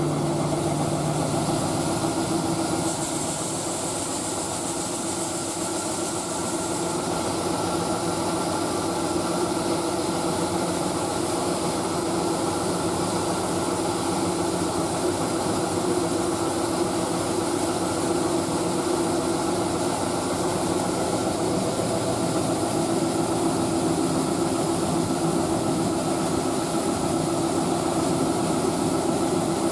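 Heavy diesel farm machinery running steadily, a constant engine drone with a few held hum tones and no change in speed.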